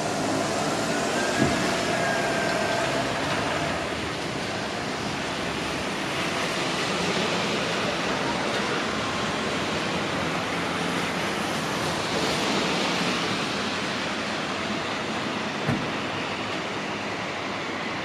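A train running along the track: a steady rushing rumble of wheels on rail, with a thin squeal in the first few seconds and a few sharp clicks.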